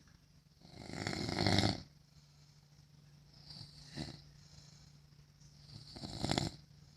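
A sleeping man snoring: two long, rattling snores about five seconds apart, with a shorter one between them.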